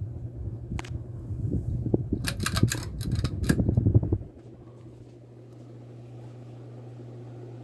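Litex Crown 42-inch ceiling fan running with a steady low motor hum. Over it come rumbling and a run of sharp clicks, which stop abruptly about four seconds in, leaving only the even hum.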